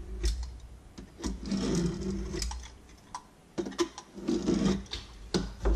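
Utility knife blade scraping caked-up grime out of a laminate countertop seam, in a few short strokes with small ticks between them.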